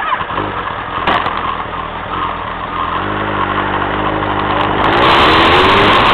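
Engine of the vehicle carrying the camera, running on the move; about five seconds in its pitch starts rising as it speeds up, and rushing wind noise gets louder. A short knock comes about a second in.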